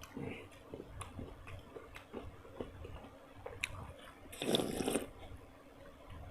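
A person chewing food close to the microphone, with small wet mouth clicks throughout and one louder bite or slurp about four and a half seconds in.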